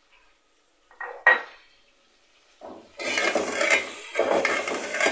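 A steel serving spoon clanks twice against an aluminium cooking pot about a second in. From about three seconds, continuous scraping and sizzling as beef with garlic-ginger paste is stirred and fried in the pot.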